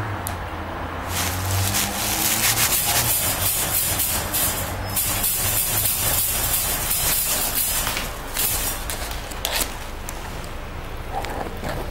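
Plastic sheeting crinkling and rustling as a raccoon dog noses and paws through it. It is loudest from about a second in until about eight seconds in, then fades to lighter rustling.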